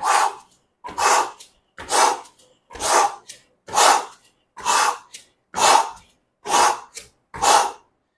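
A man's short, rhythmic breaths out, nine in a row at just under one a second. Each one comes with an alternating leg switch of a mountain-climber-style lunge exercise.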